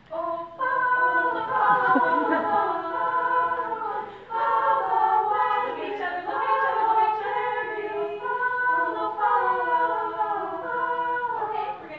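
Women's vocal ensemble singing a cappella, with a short break for breath about four seconds in; the singing stops just before the end.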